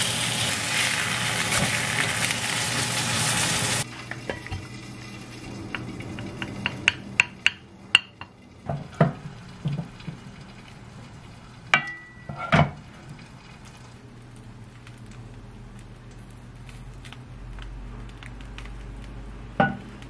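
Flounder fillet sizzling in hot oil in a frying pan, cut off abruptly about four seconds in. After that come scattered clinks and knocks of a ladle and spatula against pots and plates, with a few louder clanks in the middle and one near the end.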